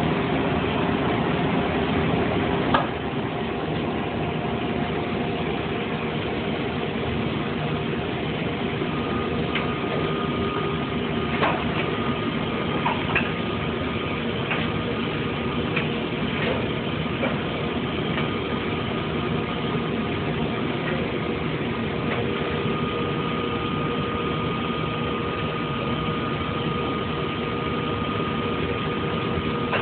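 Industrial machinery running steadily with a continuous hum, a few sharp clicks and knocks, and a faint high steady tone that comes in about a third of the way through.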